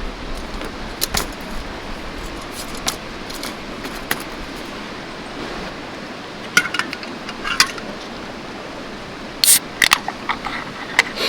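Steady rush of a mountain stream, with scattered sharp metallic clinks and clatters of camp gear being handled, bunched in two flurries in the second half.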